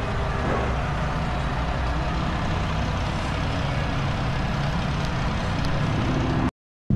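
E85 flowing from a gas-station pump nozzle into a plastic gas can: a steady rush over a low, even hum. The sound cuts off abruptly near the end.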